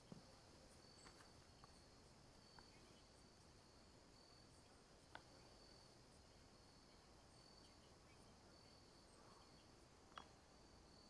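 Faint chirping of insects, a high-pitched pulse repeating about once a second, with a few faint taps, the sharpest near the end.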